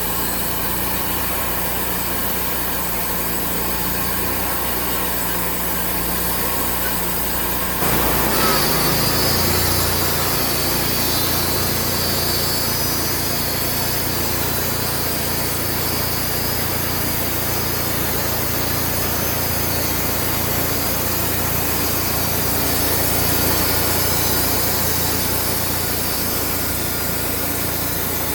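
Wood-Mizer portable band sawmill's engine running steadily. About eight seconds in, it picks up and the band blade starts cutting through a white oak log, a steady sawing sound over the engine for the rest of the stretch.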